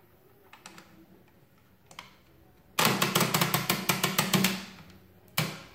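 Monroe KA mechanical calculator carriage, its clearing crank turned: after a few faint clicks, a fast run of loud ratcheting clicks about three seconds in, roughly seven or eight a second for about two seconds, as the register dials are driven back to zero to clear the top register.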